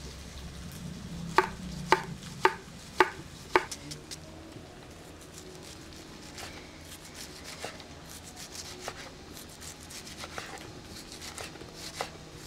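Kitchen knife chopping vegetables on a wooden cutting board: five sharp, evenly spaced cuts in the first few seconds, then lighter, scattered taps.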